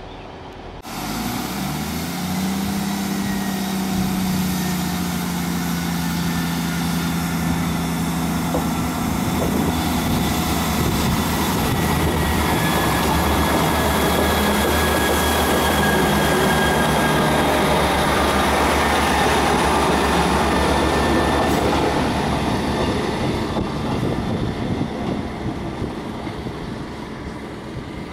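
Northern passenger train running past, with a steady engine note and rail noise over the wheels. It starts about a second in, swells, then fades over the last few seconds.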